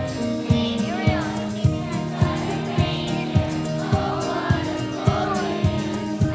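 Children's choir singing a Christmas song over instrumental accompaniment with a steady beat, a little under two beats a second.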